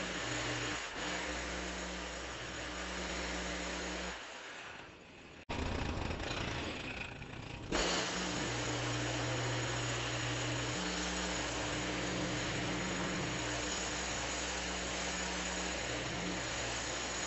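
An engine running steadily under a constant hiss. The sound drops away for about a second and a half about four seconds in, then comes back.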